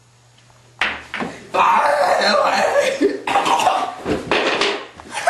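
A person coughing hard and harshly in several bouts, starting about a second in.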